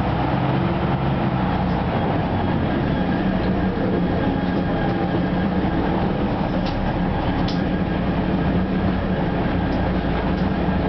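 Inside a moving Ikarus 260 city bus: the diesel engine runs steadily under a constant road and tyre rumble through the cabin, with a couple of faint rattles past the middle.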